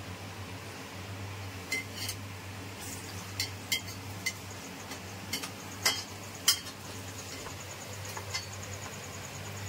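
Steel ladle clinking and scraping against a metal kadhai while stirring food frying in it: a dozen or so sharp, irregular clinks, the loudest about six seconds in, over a steady low hum.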